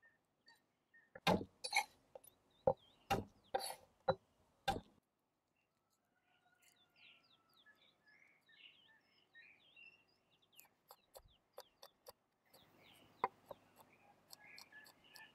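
Several sharp knocks on a wooden cutting board as garlic cloves are handled on it, then a quiet stretch with birds chirping. Near the end come quick light taps of a chef's knife chopping garlic on the board.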